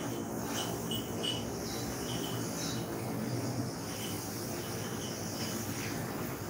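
Short, high-pitched animal chirps repeating irregularly over a steady low hum.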